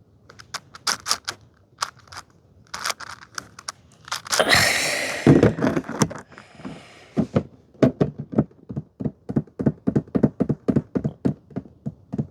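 Plastic clicks and clacks of a 6x6 Rubik's cube's layers being turned by hand. There is a louder, longer scraping rustle about four seconds in, then a quick, even run of turns at about four clicks a second.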